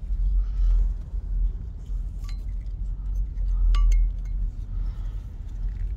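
A few light metallic clinks, two of them ringing briefly, as small metal parts or tools are handled, over a steady low rumble.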